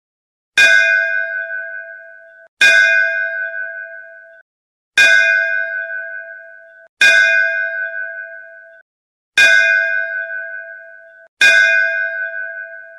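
A bell struck six times, roughly every two seconds. Each stroke rings on a steady pitch and fades, then is cut off short just before the next.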